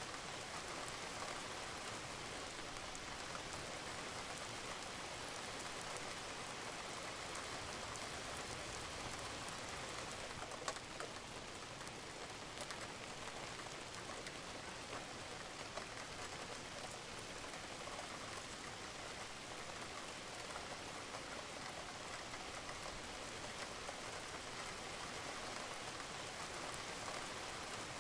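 Steady rain falling on a roof, with many small drops pattering and one sharper drip about ten seconds in.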